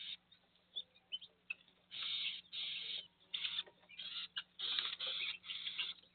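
Bird calling in a run of short, scratchy bursts, about six in quick succession from two seconds in, after a few brief chirps.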